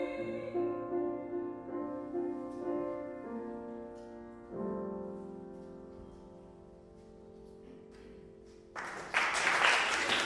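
Piano playing the closing bars of a song's accompaniment: a few changing chords, then one long held chord that slowly fades. Near the end, audience applause breaks out loudly.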